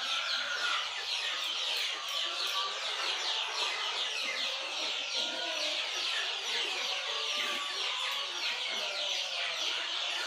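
A large flock of kampung chickens calling continuously, many short overlapping clucks and cackles.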